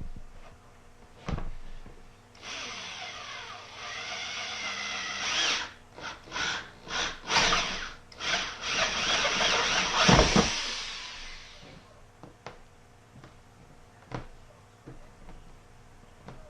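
Black & Decker power drill with a 7/8-inch bit boring a hole through the wall of the gravel grow bed. It runs steadily for a few seconds, then in several short trigger spurts, with a loud knock about ten seconds in before it winds down.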